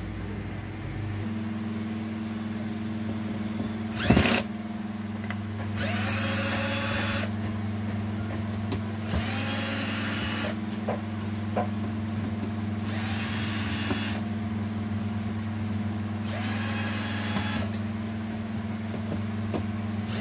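Cordless drill-driver backing out the screws of an LED TV's back cover: the motor whirs in four short bursts of about a second each, a few seconds apart, over a steady low hum. A sharp knock comes about four seconds in.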